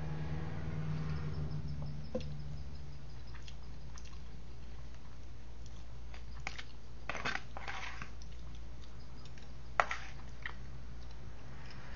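Eating sounds: chewing, with scattered sharp clicks and scrapes of a metal fork against a disposable takeout food tray, the loudest about ten seconds in, over a steady low hum.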